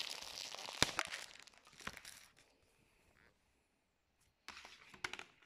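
Cellophane shrink-wrap crinkling and tearing as it is pulled off a plastic CD jewel case, with a few sharp crackles, dying away about two and a half seconds in. A short burst of plastic crinkling and clicks comes near the end.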